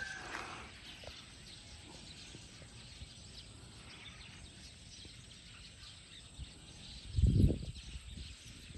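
Outdoor ambience with faint, scattered bird chirps, and a brief low rumble of wind buffeting the microphone about seven seconds in.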